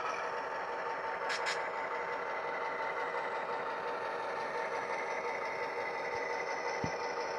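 Diesel engine sound from the DCC sound decoder in an HO scale model locomotive, played through its small onboard speaker and running steadily as the model moves slowly. Two short hissing bursts come about a second and a half in.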